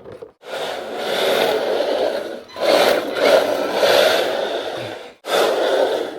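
Rough scraping or rubbing noise in three long strokes, each starting and stopping abruptly.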